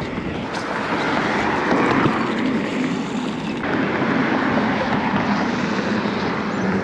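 Road traffic passing, a steady rush of vehicle noise.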